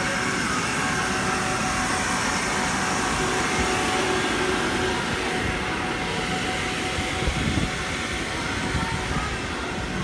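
Electric air blowers keeping an inflatable bouncy castle inflated, running with a steady whirring hum.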